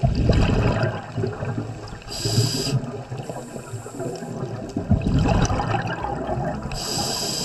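Scuba diver breathing through a regulator underwater: a low rush of exhaled bubbles, broken by a short hiss of inhalation about two seconds in and again near the end.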